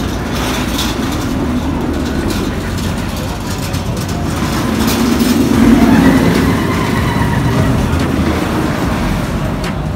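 Roller coaster train running along The Smiler's steel track overhead, a steady rumble that swells loudest about five to seven seconds in.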